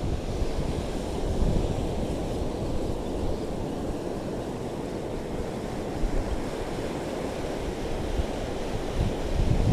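Wind buffeting the microphone over the steady wash of sea surf on a reef shore, a gusty low rumble with no distinct events.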